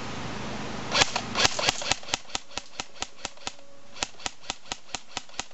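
Airsoft rifle fired in quick semi-automatic shots, sharp cracks about four a second in two strings with a brief pause between, the first few shots loudest.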